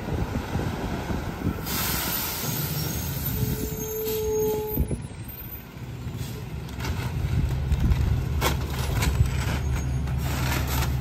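McNeilus rear-loader garbage truck: a hiss of air brakes about two seconds in, then the diesel engine running with a steady low hum from about six seconds. Several knocks near the end as paper yard-waste bags are dropped into the hopper.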